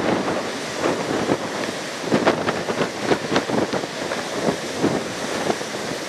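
Rough storm surf breaking over rocks: a steady rush of churning white water, broken by many short splashes and crackles of spray.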